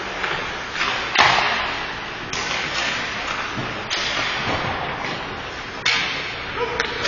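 Ice hockey play: skates scraping on the ice and four sharp knocks of play, the loudest about a second in, each ringing out in the echo of an indoor rink.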